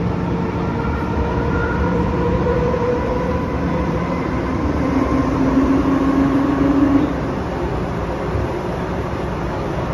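Hong Kong MTR first-generation M-train electric multiple unit running, heard from inside the car. Steady rumbling running noise is overlaid with several whining tones from the traction equipment as the train pulls out of the station into the tunnel. The loudest is a low whine in the middle that cuts off suddenly about seven seconds in.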